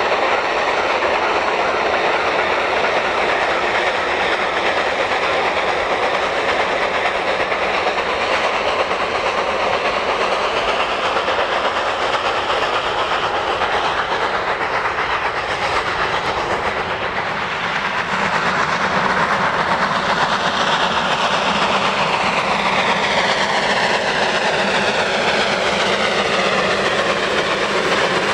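South African Railways class NGG16 Garratt steam locomotive working a freight train, with the wagons rattling over the rail joints. The sound grows and shifts in pitch through the last third as the train passes close by.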